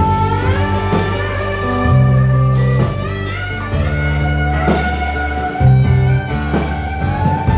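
Live blues-rock band in an instrumental break: an electric slide guitar solo with gliding notes, over bass and drums.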